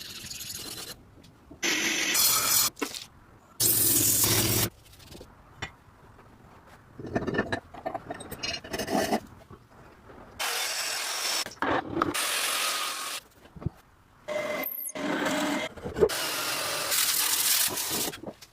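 Abrasive work on a rusty metal meat grinder: short bursts of scraping and sanding noise that start and stop abruptly, with brief quieter gaps between them.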